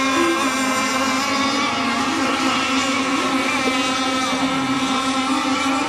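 Engines of several radio-controlled racing boats running together mid-race: a steady buzz of overlapping pitches, each holding fairly level.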